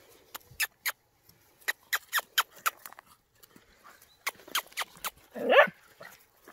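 Eight-week-old puppies at play: a scatter of short, sharp clicks in two clusters, then one loud, short puppy yelp or bark about five and a half seconds in.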